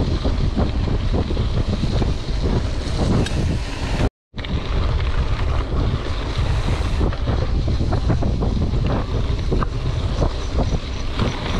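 Wind buffeting the camera microphone and mountain-bike tyres rumbling over a rough dirt and gravel road, with frequent knocks and rattles from the bike on the bumps. The sound cuts out for a moment about four seconds in.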